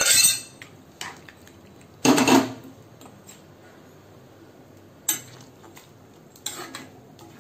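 Cooked mutton tipped from a vessel into a kadai of simmering masala, then a steel ladle scraping and clanking against the pan. This comes as a few short bursts: one at the start, the loudest about two seconds in, and two smaller ones near the end.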